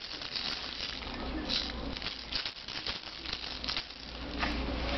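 A baby's plastic rattle toy, a clear ball filled with small beads, being shaken with an irregular rattling and clicking.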